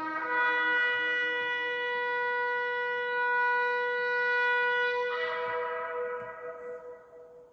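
Shofar blast: one long note held steady, turning brighter about five seconds in, then fading out near the end.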